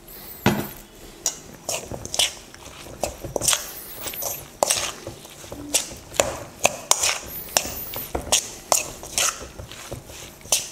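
A metal spoon stirring pakora batter of shredded vegetables, chickpea flour and water in a stainless steel bowl: wet squelching with irregular clicks and scrapes of the spoon against the bowl, about two a second.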